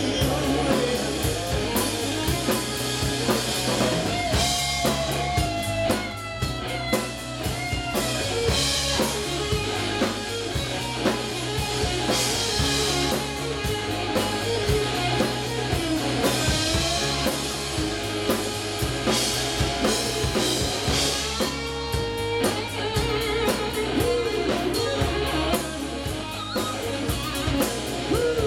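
Southern rock band playing live with no singing: an electric guitar lead with bent, sliding notes over bass, drum kit and keyboard.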